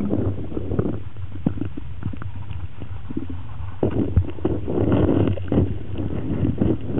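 Muffled underwater churning and knocking of a Pembroke Welsh corgi's legs dog-paddling, heard from below the surface. The knocks come irregularly, ease off for a couple of seconds, then grow louder and busier from about four seconds in.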